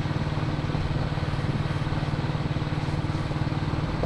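Royal Enfield single-cylinder motorcycle engine thumping along steadily at a cruise of about 30 mph on a dirt road, its even pulse unchanging.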